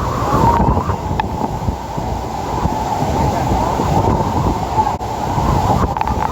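Steady, loud rumbling roar of Niagara Falls' rushing water, with wind buffeting the microphone.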